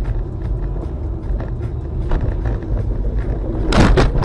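A car's road and engine rumble heard from inside the cabin through a dashcam, driving over a snowy, icy street, with scattered knocks and rattles. Near the end the car veers toward the roadside snow and a louder burst of crunching noise comes in.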